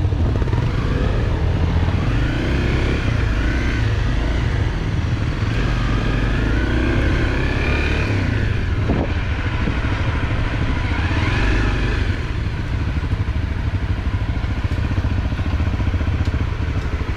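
Honda CRF250L single-cylinder dirt bike engine running under way, its pitch rising and falling with the throttle over a heavy low rumble. A single knock about nine seconds in.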